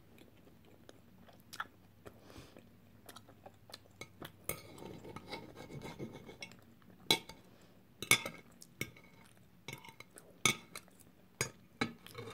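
Metal knife and fork cutting food on a plate: a scraping stretch about halfway through, then several sharp clinks of cutlery on the plate.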